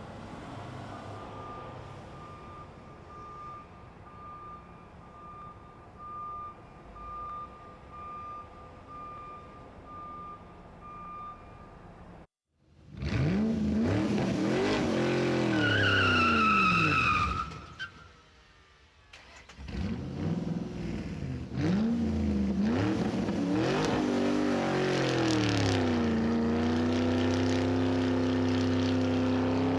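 Added vehicle sound effects: a reversing beeper beeping at an even pace over a low engine rumble, then, after a brief cut about twelve seconds in, a car engine revving up and down with a tyre squeal, settling into a steady high-revving drone near the end.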